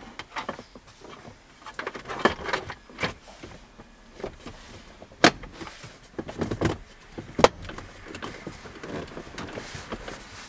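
Plastic centre-console trim and wiring being handled in a pickup's cab: scattered rustling and rattling, with sharp plastic clicks, the loudest two about five and seven seconds in, as the trim panel is pressed back into place.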